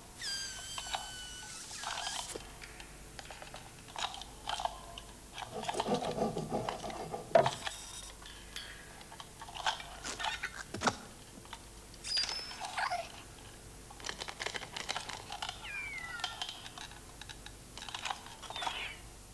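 Animated-film sound effects for hopping angle-poise lamps: light metallic clicks and taps of the lamps' bases and jointed arms, with a few short squeaky creaks. There is a falling squeak at the start, further squeaks about 12 and 16 seconds in, and the loudest knock about seven and a half seconds in.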